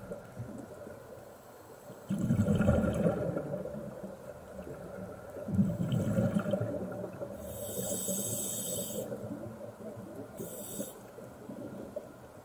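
Scuba diver breathing through a regulator, heard underwater: exhaled bubbles about two seconds in and again about six seconds in, then hissing inhalations around eight seconds in and again, shorter, near the end.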